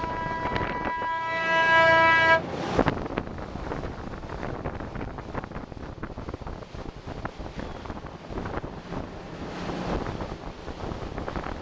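A horn holding one steady note, cutting off abruptly about two and a half seconds in. After it comes a steady rush of wind on the microphone and engine noise from the moving boat.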